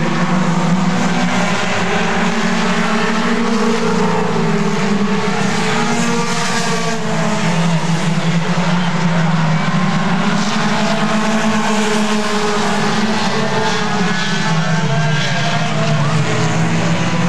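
Several mini stock race car engines running hard at once, their pitches rising and falling together as the cars race past.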